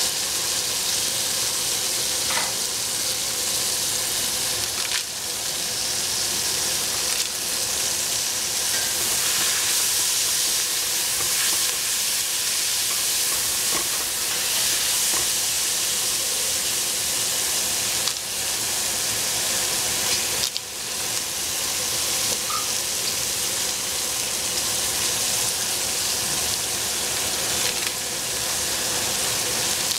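Vegetables sizzling steadily as they stir-fry in a hot pan, with a few short knocks of stirring.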